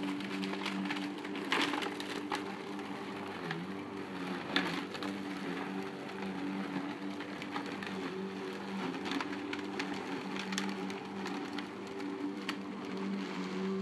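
Lawn mower running, its steady tone sagging briefly in pitch a few times, with scattered sharp crackles and snaps over it.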